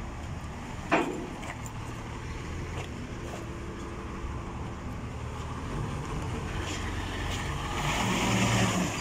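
Forklift engine running steadily, growing louder over the last three seconds, with one short sharp clank about a second in.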